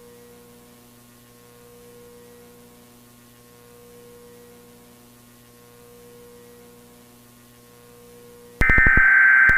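Steady low electrical hum. About a second before the end, a loud, harsh buzzing data burst begins: the first burst of an Emergency Alert System SAME header.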